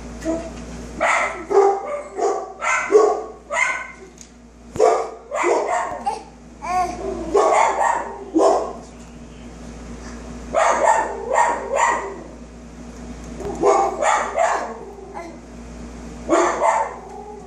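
Dog barking repeatedly, in bouts of several quick barks with pauses of a second or two between bouts.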